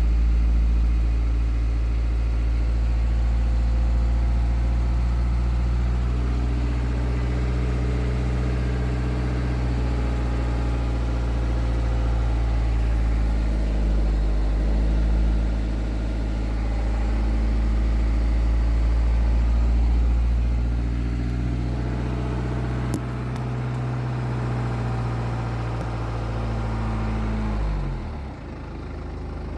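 BMW B47 2.0-litre four-cylinder diesel idling steadily, recorded for its timing chain noise. About two seconds before the end the engine is switched off and its pitch drops away as it runs down.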